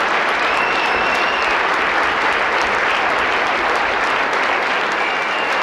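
Large audience applauding steadily in a hall, with a short held high tone rising above the clapping about half a second in.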